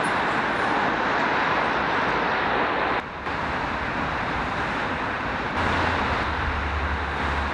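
Steady traffic noise of a busy road, with a brief break about three seconds in and a low rumble joining past the middle.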